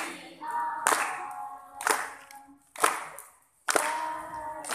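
A group clapping together in a slow beat, about once a second, over voices singing held notes.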